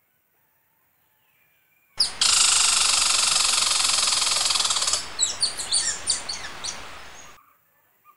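Indian giant squirrel calling: starting about two seconds in, a loud, rapid rattling trill for about three seconds, then a string of sharp, downward-sliding chirps, cutting off suddenly.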